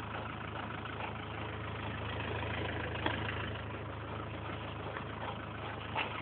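Engine idling steadily, a low even hum, with two faint clicks about three seconds in and near the end.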